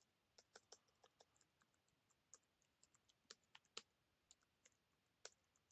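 Faint computer keyboard typing: irregular single keystrokes, a few a second, as a command is typed.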